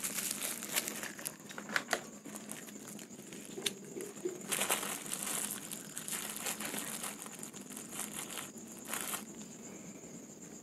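Clear plastic wrapper crinkling and rustling in short irregular bursts as a block of margarine is handled and scooped out with a plastic spatula. A faint steady high chirring of live crickets runs underneath.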